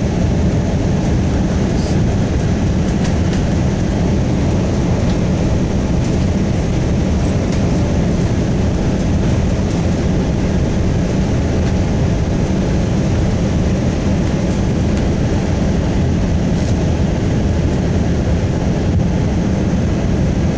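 Steady cabin noise inside an Airbus A320 airliner on its approach: an even, deep rush and drone of airflow and engines that holds at one level.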